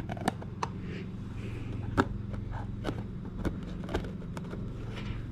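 Irregular small clicks and taps of clock parts being handled and fitted back together, the sharpest about two seconds in, over a steady low hum.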